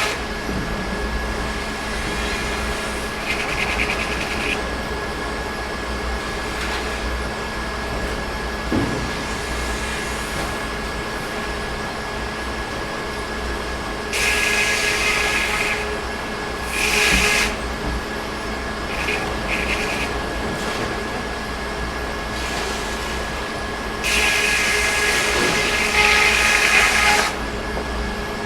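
Sawmill running steadily, with a constant mechanical hum. Louder hissing stretches of one to three seconds come and go about halfway through and again near the end.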